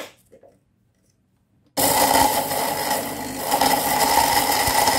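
Electric spice grinder switched on about two seconds in, its motor running steadily with a constant whine as the blades grind a jar of whole spices (coriander seed, fennel, cloves, peppercorns, cinnamon, star anise) toward a fine powder.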